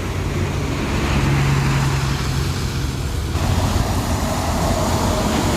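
Intercity bus's diesel engine running as the bus drives past, with a steady low hum.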